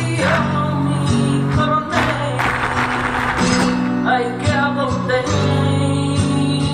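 Flamenco music in the tangos style (tangos de Málaga): strummed acoustic guitar with a singer's voice.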